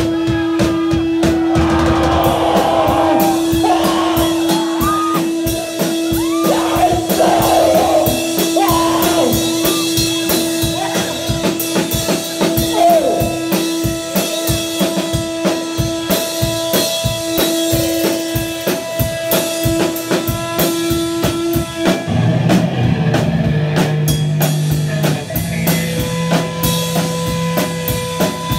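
Punk rock band playing live: fast drum kit and electric guitar, with shouted vocals in the first several seconds. A long high note holds through most of it, and about 22 seconds in the guitar drops to lower notes.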